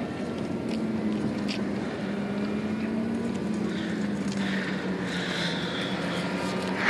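Radio-controlled model airplane's propeller heard in flight: a steady hum whose pitch drifts slightly, over a constant background hiss.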